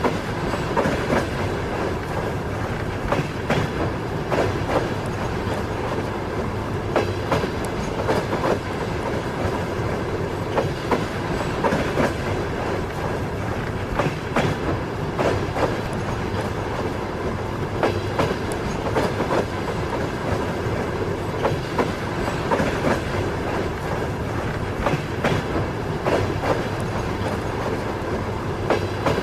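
Moving train's wheels clacking over rail joints, the clacks coming in pairs every few seconds over a steady running rumble.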